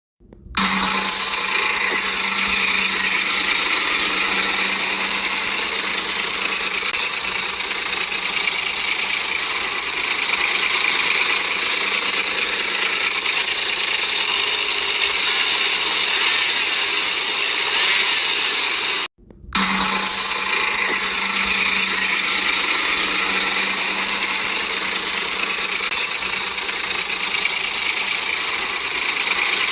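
Ford Explorer 4.0 V6 engine running with a timing chain rattle and tapping, the sign of a loose chain tensioner and worn guide. The sound cuts out for about half a second about two-thirds of the way through, then picks up again.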